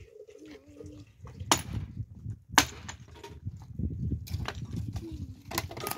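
Three sharp knocks or blows, about a second and a half in, near the middle and near the end, over rough rustling and handling noise.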